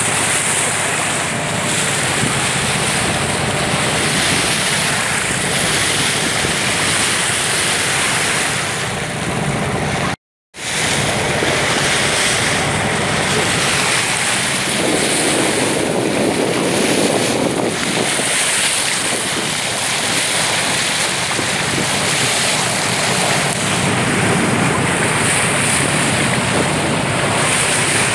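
Steady rush of water along the bow of a moving boat, with wind buffeting the microphone. The sound cuts out for a moment about ten seconds in.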